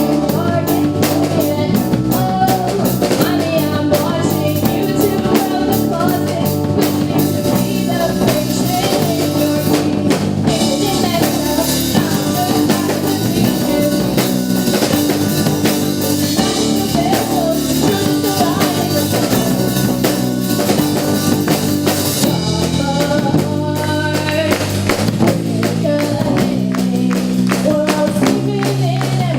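Live band playing a song, with a drum kit driving the beat and a singer over it; the cymbals get busier about three-quarters of the way through.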